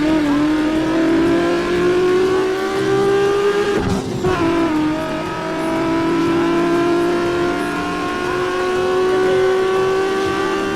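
Car engine accelerating, its pitch climbing slowly, with a sudden drop about four seconds in like a gear change before it climbs again.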